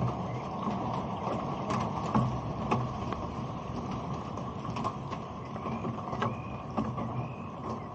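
Rain falling on a bare, uncased Insta360 One X2 camera: a steady dense patter, with frequent sharp ticks as drops strike the camera body close to its microphones.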